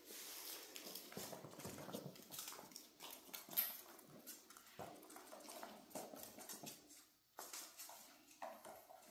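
Miniature dachshund puppies playing: claws clicking and scrabbling irregularly on a hard floor, with a few short puppy vocal sounds. One sharper click stands out about three and a half seconds in.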